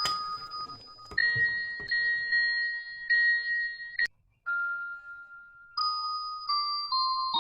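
Background music: a slow melody of held, ringing notes stepping from pitch to pitch, broken by a very short silence about four seconds in.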